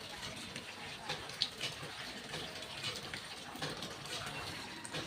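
Water running and splashing, with a few small clicks and knocks.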